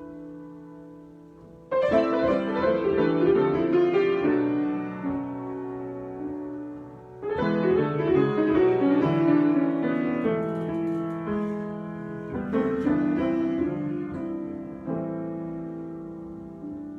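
Solo piano playing improvised music: chords and runs of notes that are let ring and fade away. Three loud phrases come in, about two, seven and twelve and a half seconds in.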